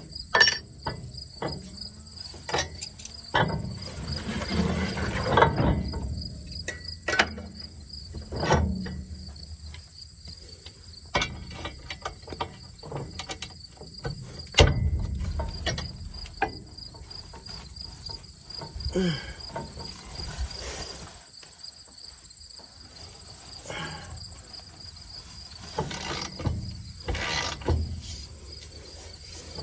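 Crickets chirping steadily and high-pitched, with scattered clicks and knocks of hand tools on metal as stiff, corroded knife bolts are worked loose on a mower-conditioner.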